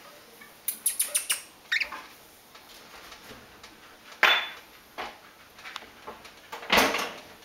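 Pionus parrot making small sounds: a quick run of sharp clicks about a second in, then two short, harsh, noisy squawks, one around the middle and one near the end.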